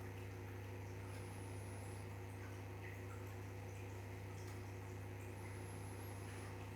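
Steady low hum with a few fainter steady tones above it. Two faint, high, wavering whistles come through, one about a second in and one about five seconds in.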